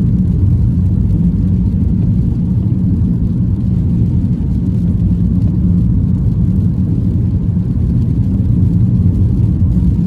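Steady low rumble of a car's engine and tyres, heard from inside the cabin while cruising on a wet road.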